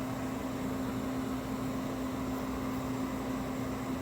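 Steady electric hum of a small motor or fan running continuously, with one strong steady low tone over an even whir.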